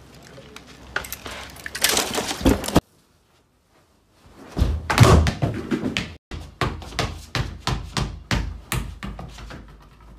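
Thuds on a hard indoor floor: one heavy thump as a bulky mascot costume tumbles over, then a run of even knocks, about two or three a second, from the costume's feet and a toy ball on the floor.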